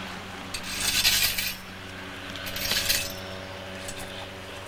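Two short bursts of rustling, crinkly handling noise as a bouquet of flowers is set down at a gravestone, over a steady low hum.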